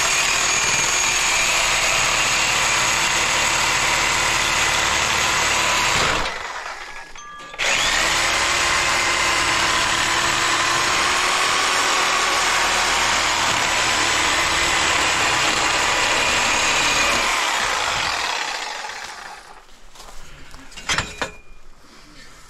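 A motor-driven machine running with a steady whine, cutting out about six seconds in for a second and a half, then running again and winding down near the end, followed by a few sharp clicks.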